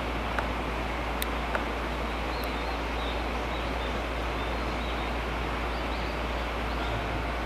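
Steady outdoor rushing noise, with faint high bird chirps from a few seconds in and a few light clicks near the start.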